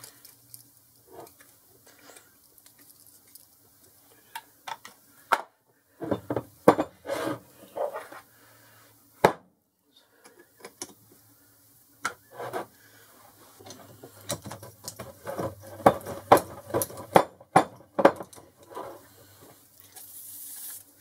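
Steel tools and parts clinking and clicking against a cast-iron four-jaw lathe chuck as it is reassembled, with a chuck key turning the jaw screws. A short aerosol hiss of WD-40 being sprayed onto the jaws near the end.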